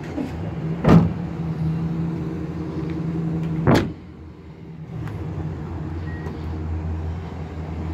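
Hard tonneau cover on a pickup bed being lowered and shut: two heavy thumps, one about a second in and a louder-ringing one just before four seconds, over a steady low hum.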